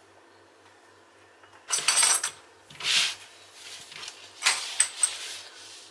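Handling noises of small objects being picked up and moved: rustling with a few light clinks, in three short bursts starting nearly two seconds in.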